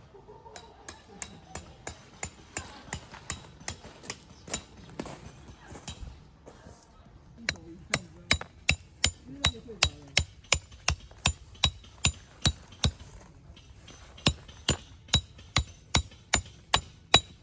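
Hammer driving a metal tent stake into the ground: sharp, ringing strikes about three a second, in three runs with two short pauses.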